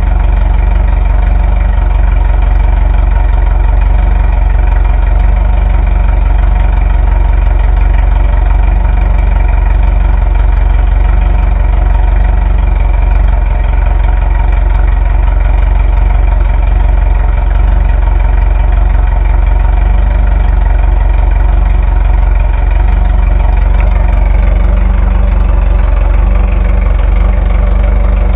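Air-cooled VW 1600 flat-four engine in a dune buggy idling steadily on its first test fire, fuelled without a fuel pump. It runs evenly throughout, which the owner takes as the sign of a good motor.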